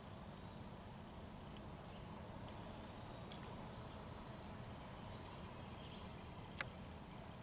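An insect's high, steady trill: one even tone lasting about four seconds, starting a little over a second in. A single sharp click follows near the end.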